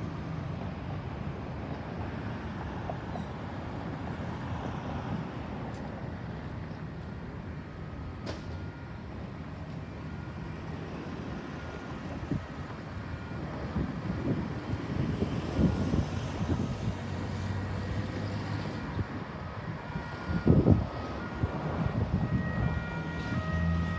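Road traffic: vehicle engines running and passing, a steady low rumble with a few louder low thumps in the second half. No siren is heard. Pitched tones, likely music, begin near the end.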